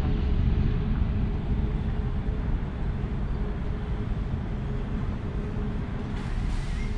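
Steady low rumble of a large airport terminal hall with a faint constant hum, heard on the move. A brief burst of hiss comes about six seconds in.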